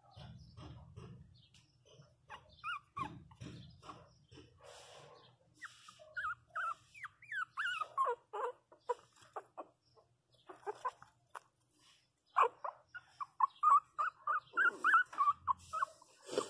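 Young pinscher puppies whimpering and yelping in short high cries that slide in pitch. The cries come in two quick runs, one about halfway through and a longer, louder one near the end.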